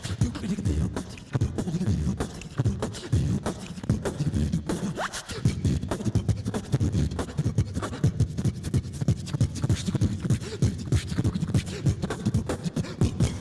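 Beatboxing amplified through a handheld microphone: a fast, continuous stream of vocal percussion over a low hummed bass, with a few short rising whistle-like glides about five seconds in.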